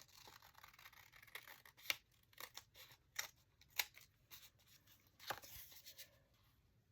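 Small scissors snipping paper in a run of short, faint cuts, trimming along an edge; the cutting stops about six seconds in.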